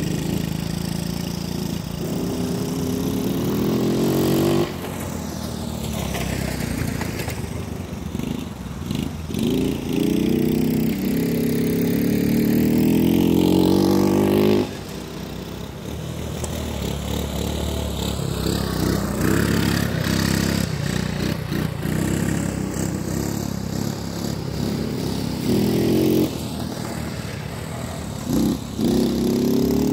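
Small air-cooled single-cylinder four-stroke engines of Honda ATC70 and ATC110 three-wheelers riding around a field. They are revved up and eased off again and again, so the pitch rises and falls, with abrupt drops where the throttle is shut.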